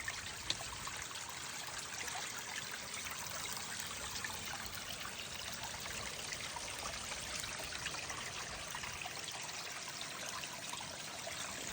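Water trickling steadily, a continuous splashing hiss of running water.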